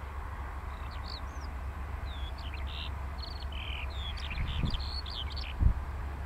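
Eurasian skylark song: a fast, varied run of high chirps, short trills and buzzy notes that stops about a second before the end. Under it is a steady low rumble of wind on the microphone, with a few dull thumps near the end.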